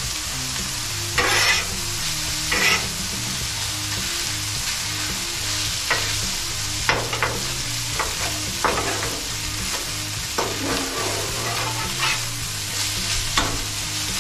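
Fried rice sizzling on a Blackstone flat-top griddle just after soy sauce has gone on, a steady frying hiss. It is being stirred and turned with metal spatulas, which scrape and clack against the steel cooktop every second or so.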